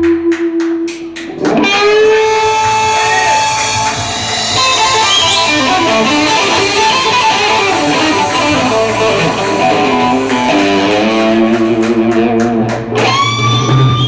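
Lead electric guitar played live in a slow blues. It plays long held notes at the start and near the end, with a run of quick notes in the middle.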